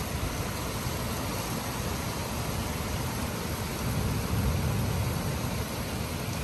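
Steady hiss of rain with road traffic, a vehicle's low rumble swelling about four seconds in.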